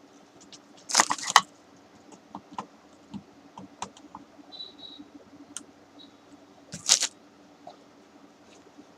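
Light clicks and rattles of hands connecting wires to a tube-light choke (electromagnetic ballast), with a louder clatter about a second in and again near seven seconds.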